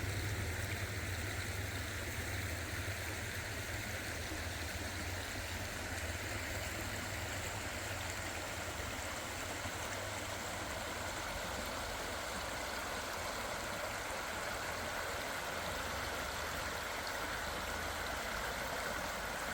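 Creek water running steadily, with a low rumble that is strongest in the first few seconds and then eases.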